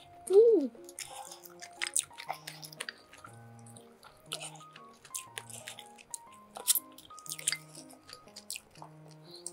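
Light background music with steady held notes, over close-miked chewing and eating with many small clicks. About half a second in comes the loudest sound, a short pitched sound that rises and falls.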